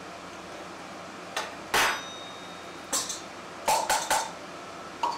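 Kitchen utensils knocking and clinking, about six sharp knocks; the one near two seconds in is the loudest and rings briefly. These are the sounds of dry ingredients for a cake batter being measured out.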